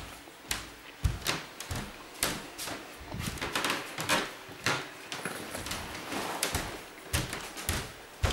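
Empty storage boxes being handled and moved, an irregular run of knocks and clatters, several a second.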